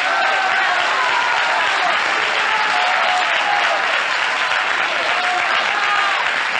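Live audience applauding steadily and warmly, with scattered voices calling out over the clapping.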